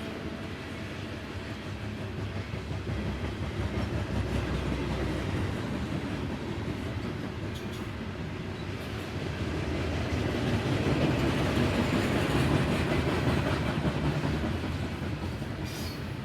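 Norfolk Southern coal train rolling past, loaded cars rumbling and clattering over the rails. It grows louder about ten seconds in and eases off near the end.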